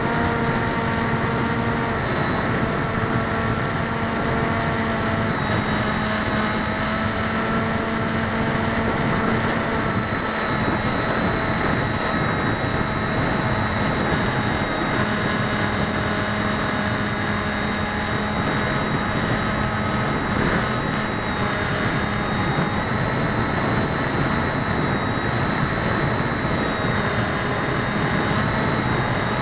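Electric motors and propellers of an RC aircraft in flight, picked up by an onboard 808 #16 keychain camera: a steady hum whose pitch drifts slightly with throttle, over a constant rush of wind and airflow. The propellers are unbalanced.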